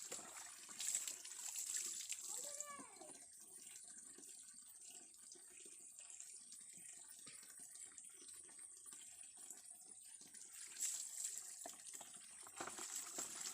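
Faint running and splashing water, with a steady high whine throughout and a short curving call about two and a half seconds in.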